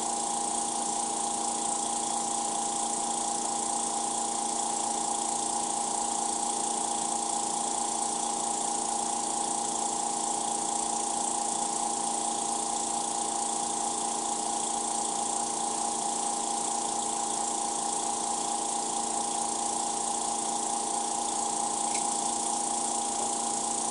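Small air compressor running steadily: a constant motor hum with a high hiss, supplying the air pressure that forces the clear urethane into the silicone mould.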